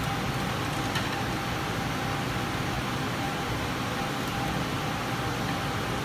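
Steady, unchanging whirring noise with a faint constant tone in it, like a fan or other small running machine, and a single small click about a second in.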